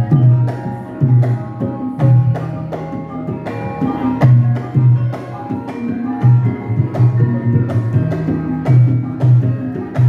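Javanese gamelan ensemble playing: struck metal keys ring out in a busy, even pattern over hand-drum strokes, with deep low notes recurring about once a second.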